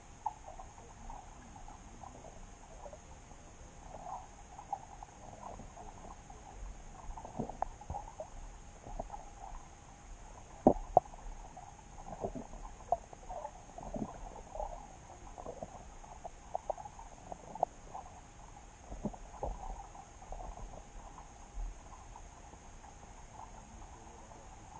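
Underwater ambience heard through a submerged camera: scattered irregular clicks and knocks, the loudest about eleven seconds in, over a steady faint hiss.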